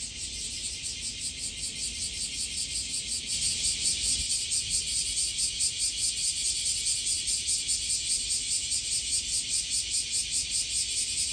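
Cicadas singing in a dense, pulsing chorus, about four pulses a second, growing louder about three seconds in.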